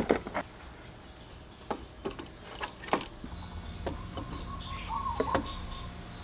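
A string of light clicks and knocks at uneven intervals, with a loud one at the very start, over a low steady hum.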